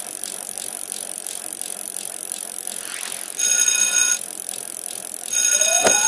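A bicycle bell rung twice, each ring lasting under a second, over steady noise. Near the end a short rising whistle begins.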